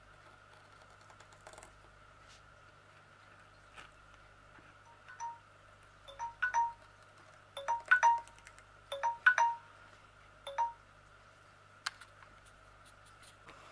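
Scissors snipping: a run of short metallic clicks, each with a brief ringing note from the blades, coming in small groups of two or three in the second half.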